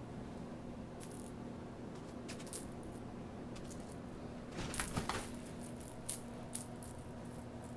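Small clicks and rustles of kittens playing with a string toy around a plastic laundry basket, with a short cluster of them about five seconds in. A steady low electrical hum runs underneath.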